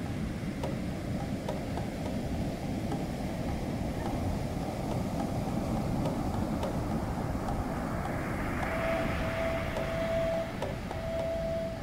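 Ocean surf breaking and washing up a sand beach: a steady low rush, with a brighter hiss of foaming wash swelling about eight seconds in. Near the end, sustained notes from a Technics KN7000 keyboard come in over the surf.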